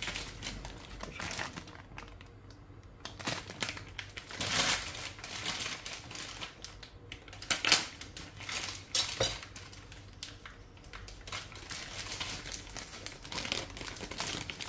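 Kitchen handling sounds: irregular clicks and knocks of a ceramic bowl and a metal spoon on a bamboo cutting board, with a plastic bag of glutinous rice flour crinkling as it is handled and tipped out near the end.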